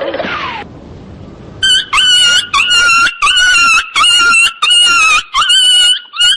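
A rapid run of short, high-pitched squealing cries, about two a second, starting about a second and a half in.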